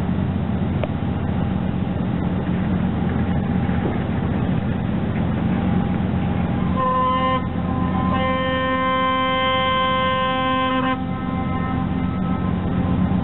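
A ship's horn sounds a short blast about seven seconds in, then a long blast of about three seconds. A steady low hum runs underneath.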